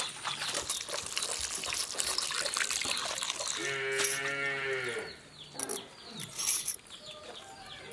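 A cow moos once, a steady call of about a second and a half, midway through. Before it comes a dense wet crackle of boiled snail meat being rubbed by hand with coarse salt on a stone slab.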